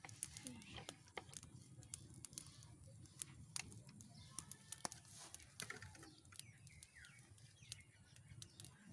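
Faint, irregular crackling and snapping of a small wood-stick fire, with corn cobs roasting over it. A few faint bird chirps in the background.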